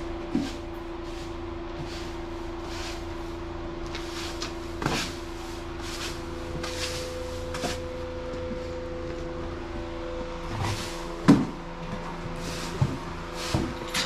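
Push broom sweeping chopped straw bedding across a concrete stall floor in repeated strokes, about one a second, over a steady mechanical hum. A sharper knock comes about eleven seconds in.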